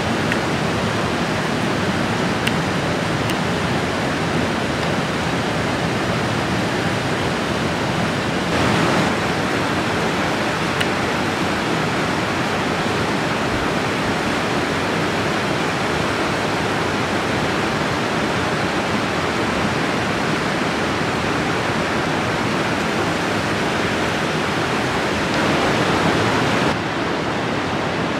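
A mountain river rushing over boulders and small cascades: a steady, fairly loud hiss of running water. It turns a little duller near the end.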